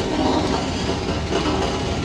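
Heavy vehicle engine running steadily, a loud continuous mechanical noise.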